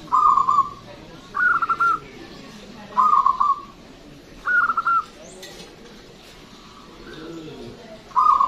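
Caged zebra dove (perkutut) singing its rapid rolling coos: five short phrases in about one and a half second steps, with a pause of about three seconds before the last one near the end.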